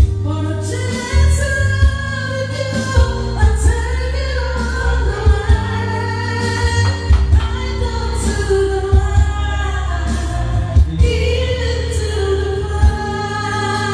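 A woman singing karaoke into a handheld microphone through the venue's speakers, over loud backing music with a heavy bass beat.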